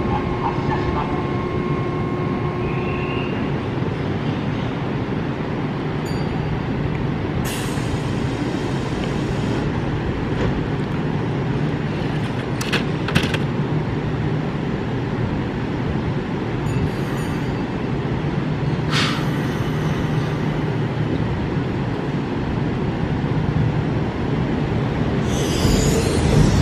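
Kintetsu electric train standing at the platform with a steady hum, broken by several short hisses of air. Near the end it starts to pull away and the sound swells as it gets moving.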